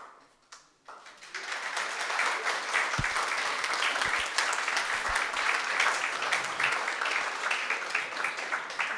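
An audience clapping in applause. It begins about a second in, builds quickly and carries on steadily to the end.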